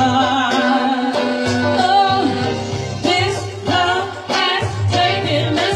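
A woman singing a soul lead vocal into a microphone over band accompaniment with a steady bass line.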